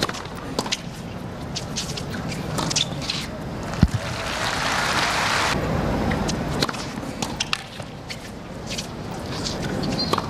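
Tennis ball struck by racquets in a rally on a hard court: a series of sharp pops, the hardest just before four seconds in, over stadium crowd noise that swells for a second or two around then.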